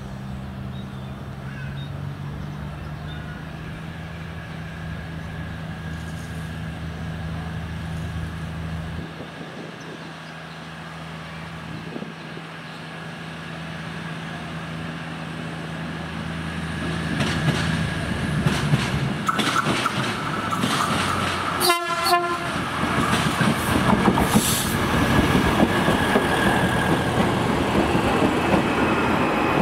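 A diesel train on the rails: a steady low engine hum at first, then the train drawing closer and passing, louder over the last third with wheel clatter and a horn blast.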